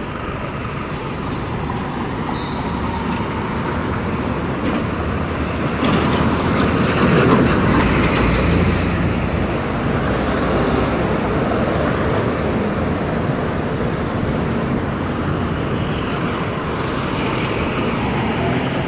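Road traffic: cars and MTA city buses driving past with engine and tyre noise. It swells to its loudest between about six and nine seconds in, as a vehicle passes close.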